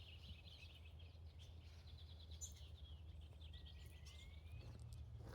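Faint birdsong: quick chirps and trills, with one slow rising whistle a little past halfway, over a low steady rumble.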